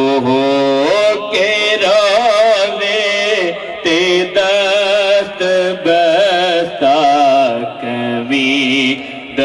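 A man singing a Punjabi naat unaccompanied in long, melismatic phrases that waver and turn in pitch, with short breaks between phrases, over a steady low drone.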